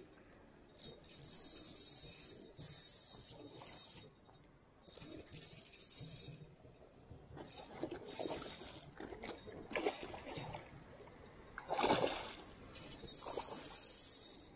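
A fishing reel ratcheting in short rasping bursts as a hooked salmon trout is played, while the fish thrashes and splashes at the surface several times, the loudest splash near the end.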